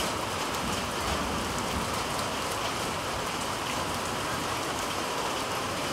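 Heavy rain falling steadily: a constant hiss dotted with many small drop ticks.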